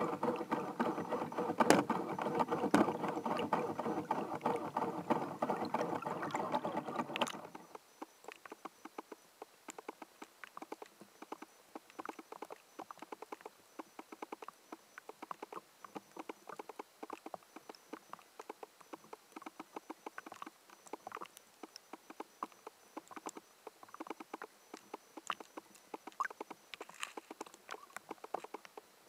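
Underwater sound: a steady machine-like drone with many overtones for the first seven seconds or so, cutting off abruptly, then a constant fine crackle of clicks.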